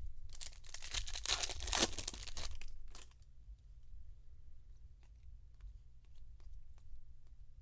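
Foil wrapper of a Topps Chrome trading-card pack torn open with a crinkling rip lasting a couple of seconds, followed by light clicks of cards being handled.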